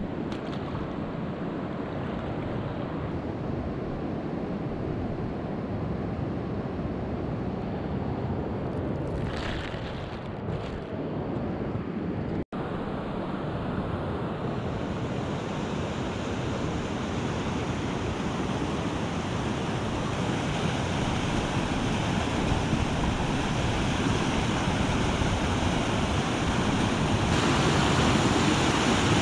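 Steady rushing of river water with wind on the microphone, broken by an abrupt cut about twelve seconds in; after it, whitewater pouring over a rock ledge in a small falls, a steady rush that grows louder toward the end.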